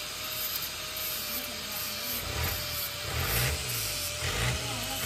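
Fiat 480 Special tractor's diesel engine running over a steady hiss, its revs rising and falling from about two seconds in.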